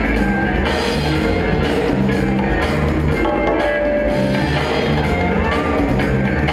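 Loud music with a steady, repeating drum and bass beat, played over an arena's loudspeaker system and heard from the audience.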